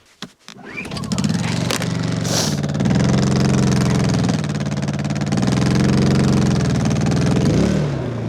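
Small portable gas generator starting and running, its engine note rising and sagging several times as the wood splitter's electric motor pulls on it, then dropping near the end as the overload trips.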